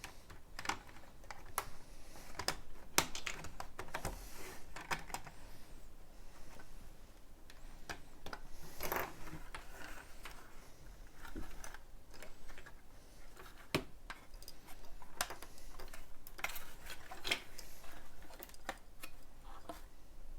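Lego plastic bricks and plates being handled and pressed together, making irregular small clicks and taps.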